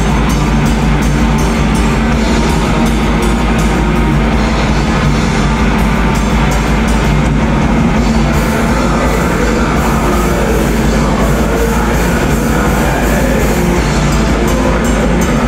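Black metal band playing live: loud, dense distorted guitars and bass over fast drumming, with no break.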